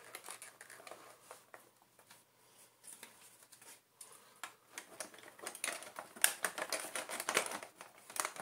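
Small hard plastic parts of a Shark vacuum floor head clicking and rattling as the housing is handled and fitted together. The run of quick clicks is sparse at first and gets busier and louder in the second half.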